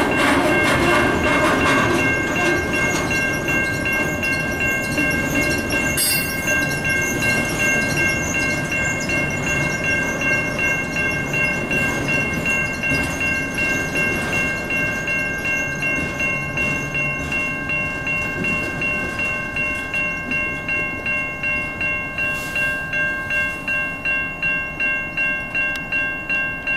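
Railroad crossing bell ringing in a steady rhythm, about two strokes a second, while an autorack freight train rolls through the crossing. The train's rumble and wheel clatter fade as its last cars pass, leaving the bell ringing.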